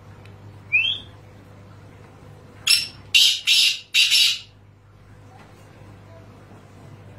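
Male black francolin (Sindhi teetar) calling: a short rising chirp about a second in, then four loud, harsh, grating notes in quick succession about three seconds in.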